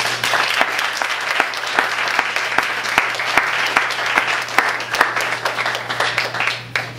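Audience applauding: the clapping starts suddenly, with single sharp claps standing out, and dies away near the end.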